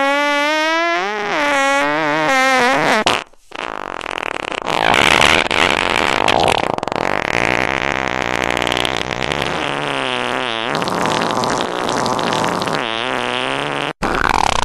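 Fart sounds: a pitched fart that wavers up and down for about three seconds, then after a brief break a long, noisier fart with a wobbling pitch lasting about ten seconds, and a short one near the end.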